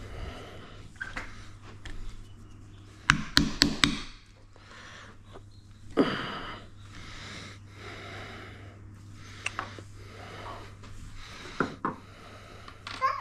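Knocks and clicks of hand work on door latch hardware: a quick run of about four sharp knocks about three seconds in, one louder knock about six seconds in, and a few lighter clicks later. A steady low hum sits underneath.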